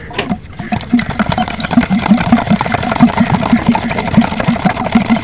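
Medicine powder being stirred briskly into water in a steel mug: a rhythmic sloshing and knocking of the stirrer against the metal, about four to five strokes a second.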